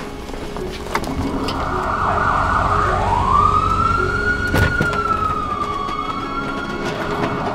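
Ambulance siren wailing: a single tone sweeps up, then slowly falls and rises again. A sharp knock sounds about halfway through.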